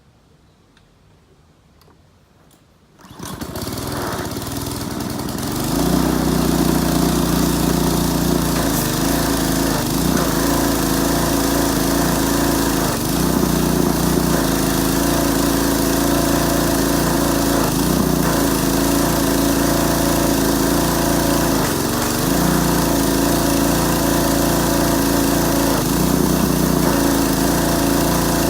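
Kohler Courage XT7 173 cc single-cylinder engine on a pressure washer starting about three seconds in, picking up speed for a few seconds and then running steadily, with a few brief dips in speed. It is running on a carburetor made up from parts of the old and new carbs.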